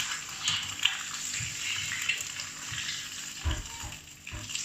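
An egg sizzling and crackling in a hot frying pan, a steady hiss with small pops, with a couple of low knocks near the end.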